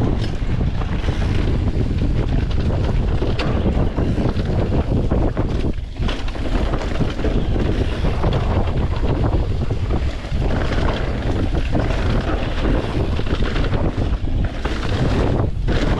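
Wind rushing over the camera microphone and mountain-bike tyres rumbling over a dirt downhill trail at speed, with small knocks and rattles from the bike over rough ground.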